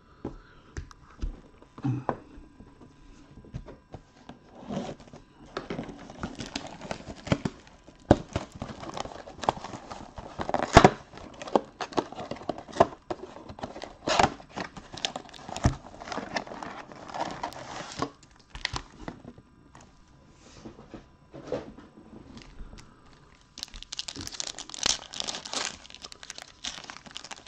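Hands tearing open a cardboard trading-card box and crinkling the plastic-wrapped card packs inside: a ragged run of tearing, crinkling and handling clicks, densest near the end.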